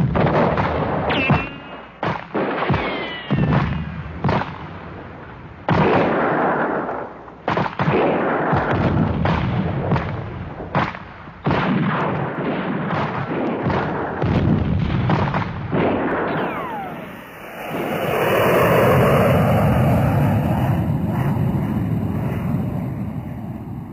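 Battle sound effects: a rapid barrage of explosions and gunfire, with a few falling whistling tones among the blasts. After about seventeen seconds the bangs give way to a long rumble that fades away near the end.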